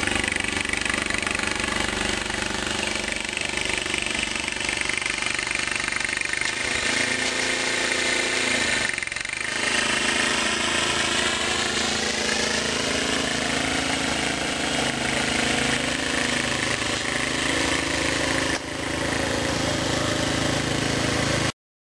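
Walk-behind gasoline snowblower running steadily as it clears snow, its engine note wavering up and down. The sound cuts off abruptly near the end.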